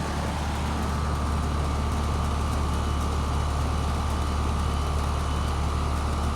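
New Grand Aire heat pump outdoor unit running in cool mode, with what appears to be a Copeland scroll compressor: a steady low hum with a faint even whine above it and fan noise.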